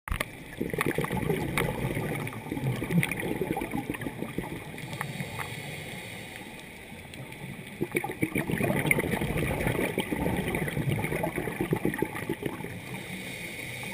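Scuba diver's exhaled bubbles gurgling and bubbling underwater, heard through the camera. They come in two long bursts of about four to five seconds each, with a quieter stretch around six seconds in.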